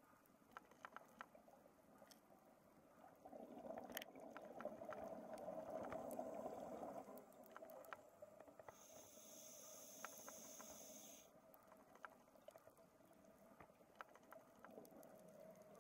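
A scuba diver breathing through a regulator, heard faintly underwater: a bubbling exhalation swells up a few seconds in, then a hissing inhalation follows. Scattered faint clicks run through it.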